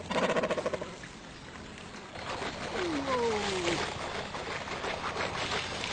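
Fishermen's calls urging trained cormorants to dive. A short rattling call comes at the very start, then drawn-out falling cries sound over a rushing noise.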